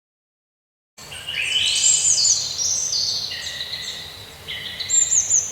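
Several birds singing at once, with overlapping whistled phrases that mostly fall in pitch, over a steady background hiss; the song starts about a second in, after a brief silence.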